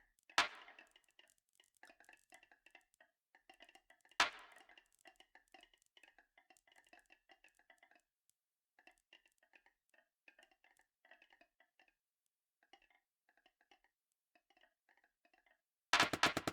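Marbles rolling and clicking along a marble run track, a quick run of small ticks with two sharper knocks, one just after the start and one about four seconds in. A dense burst of louder clicking comes in near the end.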